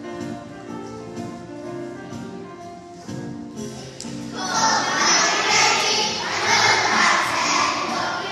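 Instrumental music playing; about four seconds in, a group of children starts singing along with it, much louder.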